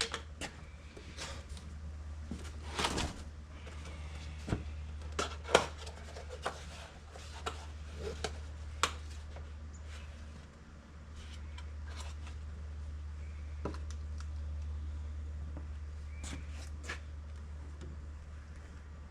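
Scattered clicks and knocks of parts being handled during an excavator air filter change, over a steady low hum.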